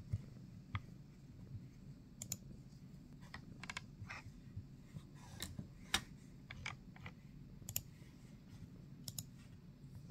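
Computer mouse clicking irregularly: single sharp clicks and quick double clicks scattered throughout, over a faint low steady hum.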